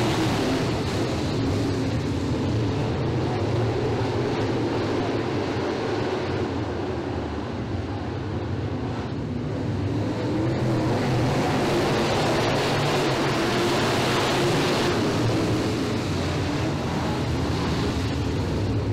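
A pack of Promodified dirt-track race cars running hard together around the oval, their engines blending into one dense, steady engine noise. It dips slightly about halfway through and swells again.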